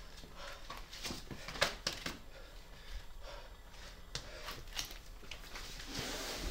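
Faint scuffs and a few short taps of a climber's hands and shoes on the rock while moving across an overhanging boulder, with some breathing.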